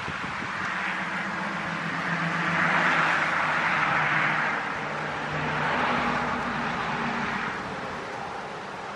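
Wind rustling birch leaves, with a road vehicle passing: a low engine hum and tyre noise swell in the middle and fade again.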